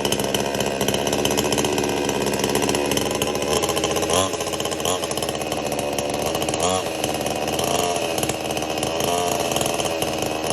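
Total 62cc two-stroke chainsaw with a 24-inch bar running steadily, its engine note swinging briefly up and down a few times.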